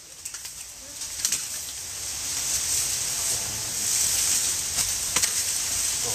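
A hand tool knocking against an old dead tree stump a few times, about a second in and twice near five seconds, over a steady high hiss.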